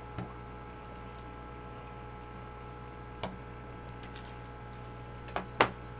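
Side cutters snipping off the sharp metal ends left sticking out of a plastic weld: about five short, sharp clicks, the loudest near the end. A steady electrical hum runs underneath.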